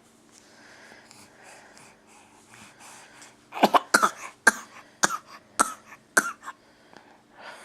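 A baby fake-coughing: a quick string of about seven short, sharp coughs over some three seconds, starting about three and a half seconds in.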